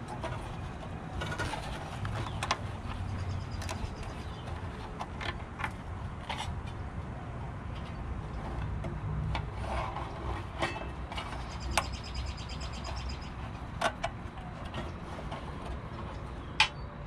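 Leather-gloved hands working wires and twist-on wire connectors inside a metal wall pack light housing: scattered small clicks, taps and rubbing over a low steady background rumble.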